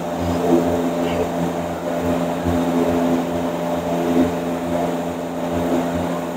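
Steady mechanical drone, a low hum with several steady tones and a pulsing rumble underneath, with a few light clicks over it.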